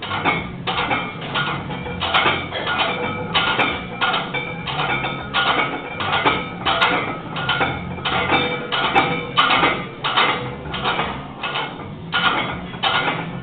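Iron weight plates clanking and rattling on a loaded barbell with each quick, unlocked rep of a heavy bench press set, a steady run of metallic clanks two to three a second.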